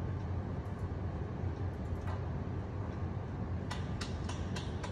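Steady low hum, with a quick run of sharp clicks near the end.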